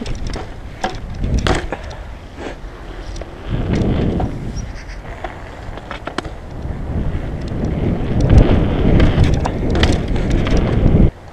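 Cube mountain bike riding over skatepark concrete: tyre rolling noise that swells about four seconds in and again from about seven seconds, with scattered clicks and knocks from the bike, cutting off suddenly near the end.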